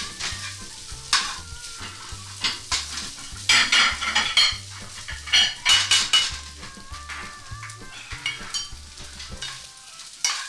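Noodle stir-fry with vegetables and sausage sizzling in a nonstick frying pan while metal tongs toss it, scraping and clattering against the pan. Plates clink against each other and the counter, the loudest clatters coming in a cluster about four to six seconds in.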